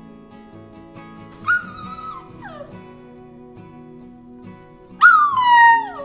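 Beagle puppy whining twice: a held whine about a second and a half in that slides down in pitch, then a louder, longer one near the end that falls away.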